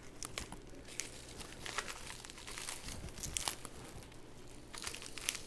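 Beef kidney suet being pulled and peeled away from a hanging hind quarter by gloved hands: faint, irregular crackling and tearing of fat and membrane coming off the tenderloin, over a low steady hum.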